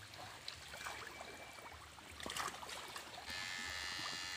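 Stream water trickling faintly, with a few small clicks. About three seconds in, a steady high-pitched buzz starts and holds for over a second.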